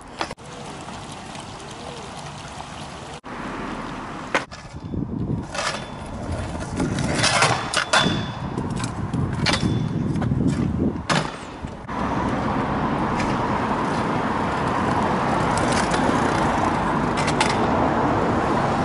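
Stunt scooter on concrete: a run of sharp knocks and clatters as the deck and wheels hit a concrete ledge and the ground. In the last third it turns to a steady rumble of the small hard wheels rolling over rough concrete.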